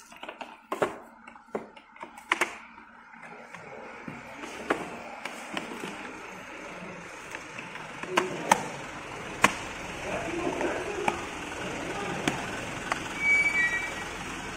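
Sharp clicks and knocks of plastic wardrobe panels and doors being handled and fitted together. Behind them a steady rushing noise builds from about four seconds in.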